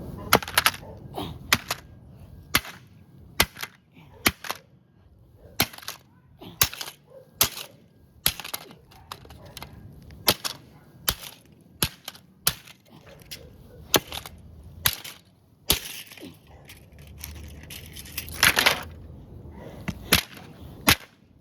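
Hammer blows on a plastic remote-control car, a long irregular run of sharp cracking knocks about once a second, some blows missing and striking the ground beside it.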